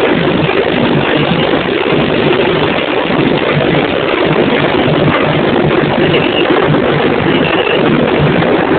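Samba percussion band (bateria) playing, so loud on a phone microphone that the drumming is distorted into a dense, steady noise with no clear separate beats.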